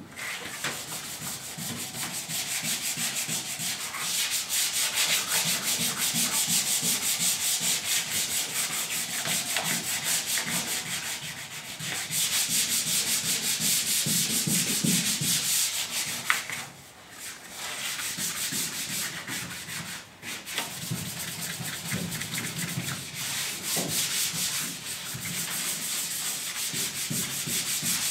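Hand sanding a truck bed floor with sandpaper: fast back-and-forth scratchy rubbing strokes, broken by a few short pauses.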